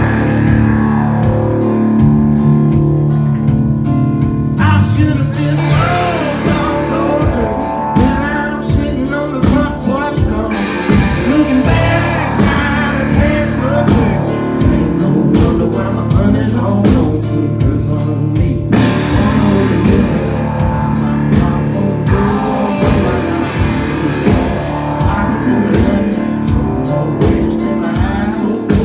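Live country-rock band playing an instrumental passage: electric guitars ringing over bass and a drum kit keeping a steady beat.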